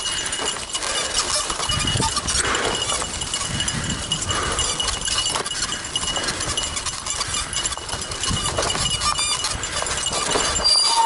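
Fat bike rolling over a bumpy dirt trail: a continuous rattle of clicks and clinks from the bike, with a faint steady high whine.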